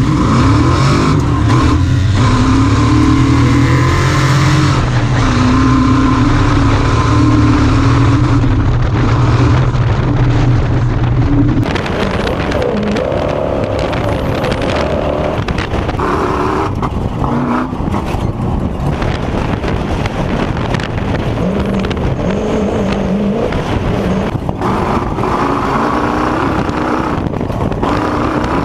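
Off-road race vehicle's engine running hard, its pitch rising and falling with the throttle. The sound changes abruptly about twelve seconds in, as at a cut to another recording.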